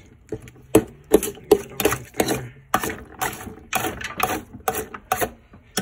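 A metal fork stirring water-soaked dry dog kibble and chicken in a speckled enamelware roasting pan: irregular clacks and scrapes of the fork against the pan and the rattling kibble, about two to three a second.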